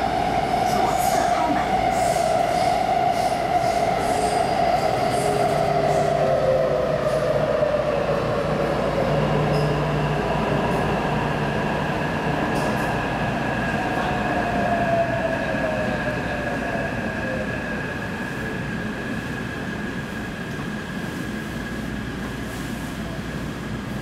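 Interior running noise of a Taipei Metro C381 subway car, with an electric whine that falls slowly in pitch twice as the train slows. A steady high tone and rumble run underneath, and the noise eases off in the second half.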